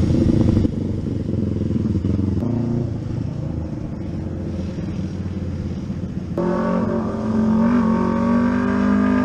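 Motorcycle engines running. About six seconds in, a nearer engine comes in with a steady, even note that rises slightly.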